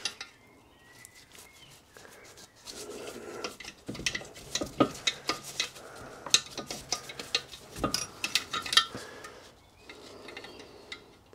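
Metal tools and parts clinking and scraping against the cast-iron frame of a Stuart steam engine while parts are worked loose inside its crankcase. After a quiet couple of seconds comes a run of sharp metallic clicks, with one heavier knock about two-thirds of the way through.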